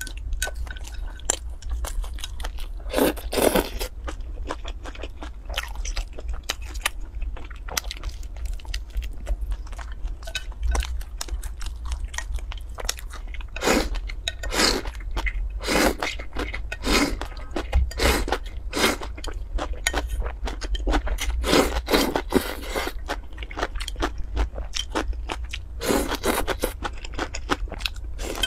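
Close-miked chewing and crunching as crusty bread and soup-soaked vegetables are eaten, a steady run of crisp crunches and wet mouth clicks with louder bites several times.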